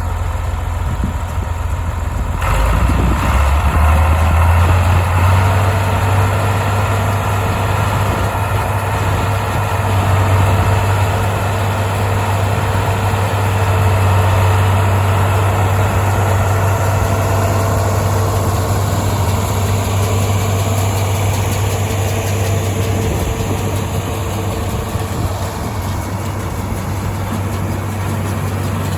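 John Deere 4230 tractor's diesel engine running steadily with a deep, even hum while pulling a hay rake, getting louder about two seconds in.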